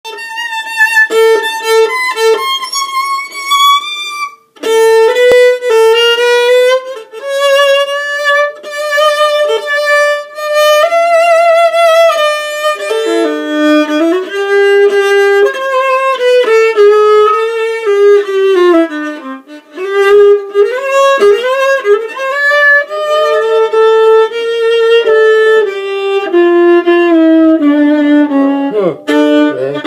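Solo violin bowed at close range: a slow melody of held notes with vibrato, sliding in pitch in places, and two notes sounding together at times in the second half. The playing breaks off briefly about four and a half seconds in.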